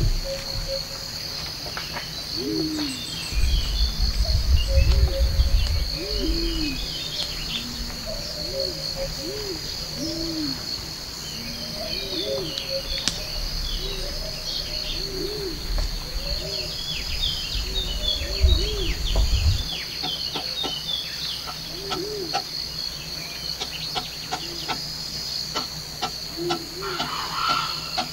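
Forest ambience: a steady, high insect drone with birds chirping, and a low call repeated about once a second. Spells of low rumble come and go, and scattered clicks and taps come in the last several seconds.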